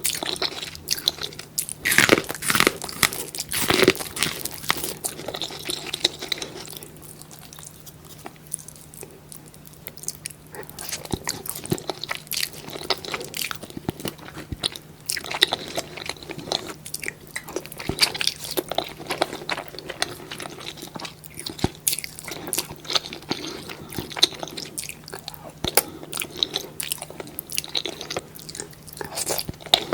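Close-miked eating sounds from a cheesy seafood mukbang: crunchy bites and chewing, heaviest in the first few seconds, easing off briefly, then steady again. A faint steady hum lies underneath.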